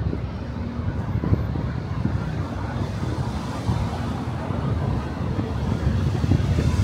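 City street traffic rumble, steady and noisy, with wind buffeting the microphone.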